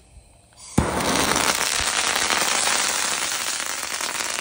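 Lit pieces of small crackling pyrotechnic sticks: a brief hiss as they catch, then a sudden burst of dense crackling and popping about a second in that goes on without a break, easing only slightly.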